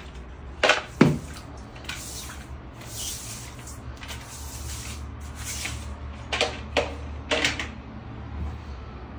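Household clatter during cleaning: two sharp knocks about a second in and three more between six and seven and a half seconds in, with a stretch of hissy rubbing noise between them.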